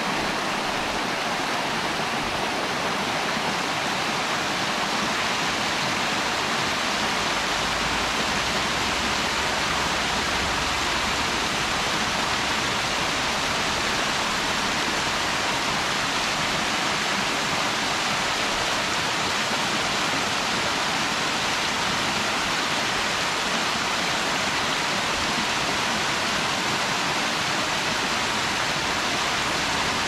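Mountain creek cascade: water rushing steadily over the falls in an even, unbroken roar of white water.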